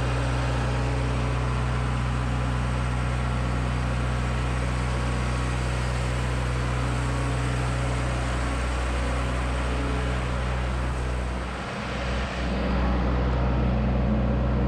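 A large engine running steadily, with a brief dip in its note about twelve seconds in before it picks back up with a slightly fuller sound.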